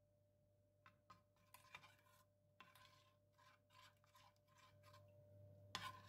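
Faint, irregular scraping and clicking of a metal spoon against a stainless steel saucepan as chopped milk chocolate is stirred into hot cream to melt.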